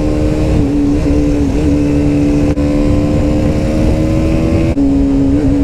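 TVS Apache RR 310's single-cylinder engine under way at highway speed, its note climbing slowly. About five seconds in the pitch drops suddenly as it shifts up, then climbs again. Heavy wind rush on the microphone throughout.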